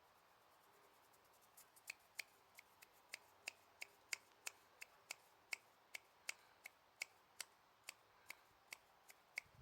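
A run of sharp, light clicks, about three a second and somewhat uneven, starting about a second and a half in.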